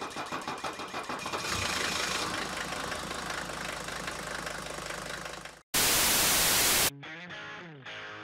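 Car engine cranking in rapid regular pulses, then running with a rough rumble. About six seconds in, a loud burst of static hiss lasts about a second, and electric guitar music begins near the end.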